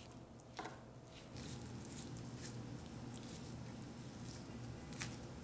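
Chef's knife chopping raw beef rib meat on a wooden cutting board: faint, irregular knocks of the blade against the board, with soft squishing of the meat.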